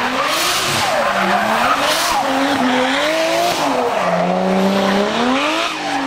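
Drift car's engine revving up and down while the car slides sideways through a hairpin, its rear tyres skidding and screeching. The revs climb steeply about five seconds in, then drop.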